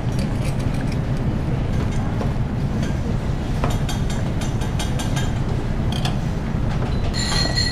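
Steady low rumble of kitchen background noise, with a few light clicks of utensils and a short ringing clink near the end.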